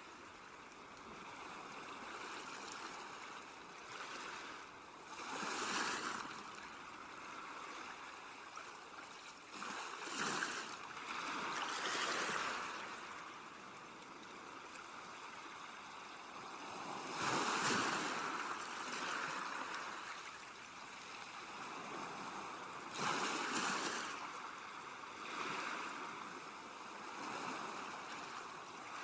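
Sea waves washing onto a shore, swelling and ebbing every few seconds.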